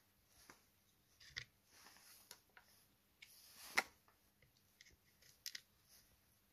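Faint, scattered metallic clicks and light scrapes of small metal parts being handled on a Ford Model T trembler coil: the vibrator spring, terminal posts and washers. The sharpest click comes a little before four seconds in.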